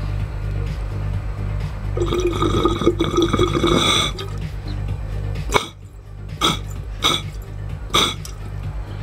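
Water bubbling through a Manifest Glassworks glass bong's diffuser and percolator as a hit is drawn, about two seconds of dense gurgling with a faint whistle, followed by four short gurgles.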